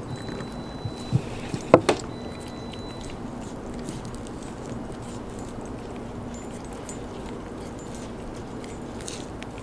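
Belgian Malinois dog gnawing at a raw beef rib, with a few sharp clicks and knocks between about one and two seconds in.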